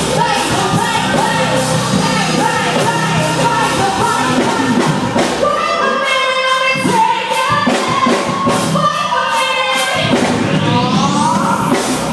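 Live band playing a pop song with a vocalist singing over it. About halfway the drums and bass drop away and long held sung notes carry on, with a rising sweep near the end.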